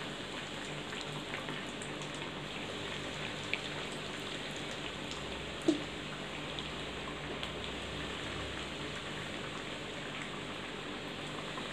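Chicken nuggets deep-frying in a pan of hot oil: a steady sizzle full of fine crackles. Two brief sharp sounds cut through it, a small one a few seconds in and a louder one about halfway through.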